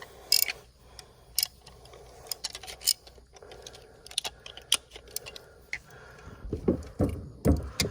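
Scattered sharp clicks and small knocks of hands working a fuel hose onto a tank fitting, with a few duller thumps near the end.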